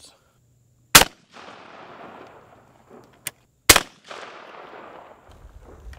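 Two shots from a Henry single-shot break-action 12-gauge shotgun firing double-aught buckshot, the second about two and a half seconds after the first. Each is a sharp, loud blast followed by a rolling echo that fades over a second or so.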